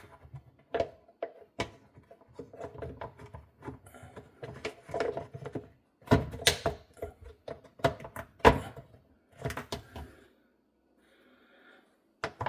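Plastic dishwasher filter parts being handled and fitted back into the tub: irregular knocks, clicks and rattles, with the sharpest knocks in the middle and a brief quiet spell near the end.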